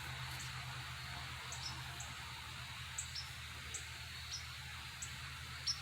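Faint background: a steady low hum with short high chirps every half second to second, from crickets.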